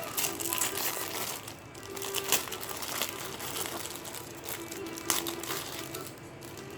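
Packaging crinkling and rustling in irregular crackles as a phone replacement LCD screen is unwrapped by hand, over faint background music.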